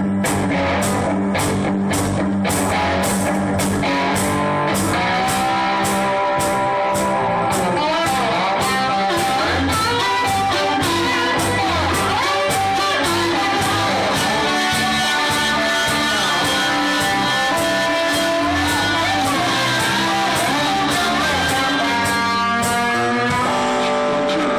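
Live blues-rock band playing: electric guitar over a steady drum beat.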